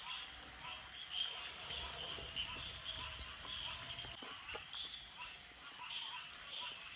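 Crickets chirping steadily in the background, a high pulsing chirp repeating several times a second over a constant high trill.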